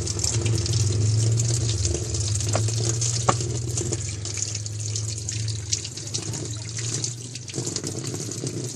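Water running into the tub of a Samsung WA80U3 top-loading washing machine through its inlet valve as it fills: a steady hiss of water with a low hum that stops near the end. The water keeps flowing past the low water-level setting, a sign that the water level sensor needs setting.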